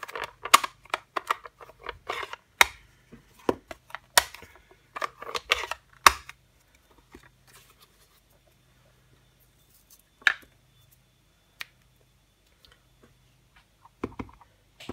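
Hard plastic ink pad cases clicking open and clear acrylic stamp blocks being handled and set down: a quick run of clicks and taps over the first six seconds, then a few scattered taps.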